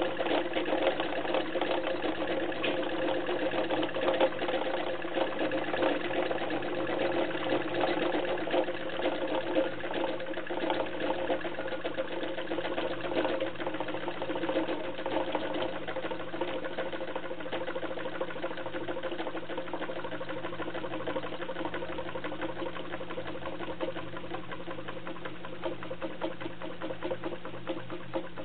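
Homemade tin-can Stirling engine running, a fast, steady mechanical rattle from its crank, flywheel and linkages. It grows gradually quieter through the second half as the tea-light heat is taken away from under it.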